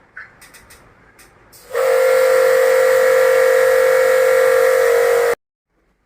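Electric pressure washer running and spraying: a steady whine with hiss that starts suddenly a little under two seconds in and cuts off sharply about three and a half seconds later, after a few faint clicks.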